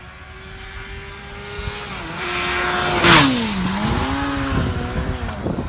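A motorcycle approaching at speed, its engine note growing louder and rising, then passing close by about three seconds in with a rush of noise and a sharp drop in pitch before pulling away.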